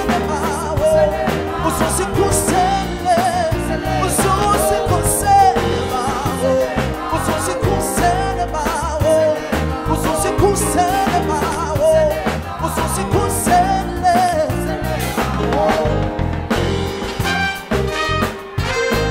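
Live jazz band playing: several voices singing over drums, bass and keys, with saxophone, cornet and trombone heard near the end.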